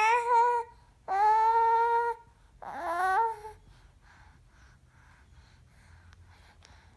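A baby making high-pitched vocal noises: a short held vowel sound, a longer one kept at a steady pitch for about a second, and a third that slides upward, all within the first three and a half seconds, followed by a few faint, soft babbling sounds.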